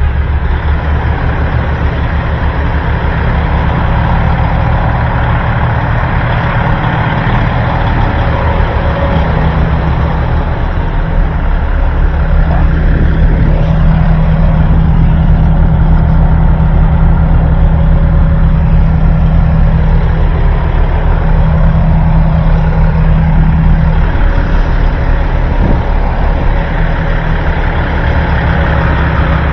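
Semi-truck diesel engine idling steadily with a deep, even rumble, louder for a stretch in the middle.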